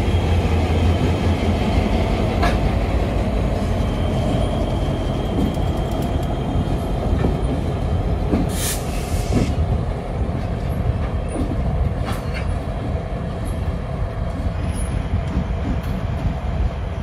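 CSX diesel locomotives of a maintenance-of-way train rolling past as the train pulls out, a steady engine and wheel rumble that is heaviest at first. A few sharp clicks cut through it, and there is a short hiss about nine seconds in.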